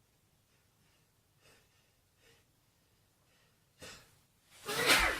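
A man's sneeze near the end, the loudest sound: a sharp intake of breath about four seconds in, then a loud burst as the sneeze breaks, after a few faint breaths. It comes during an allergy sneezing fit set off by dust.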